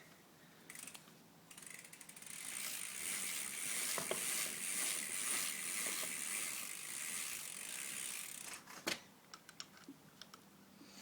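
Rapid, steady ratchet clicking for about seven seconds, then a single sharp click near the end.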